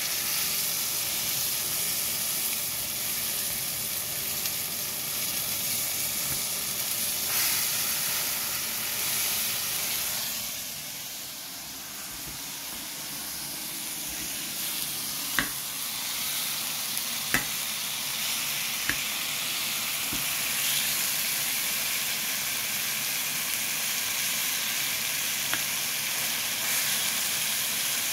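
Whole tomatoes sizzling steadily in hot oil in a frying pan, being turned with a metal spatula; a few sharp clicks of the spatula against the pan come in the second half.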